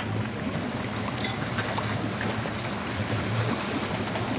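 Steady wind noise on the microphone and choppy water around a boat on open sea, with a low rumble underneath and a few faint ticks.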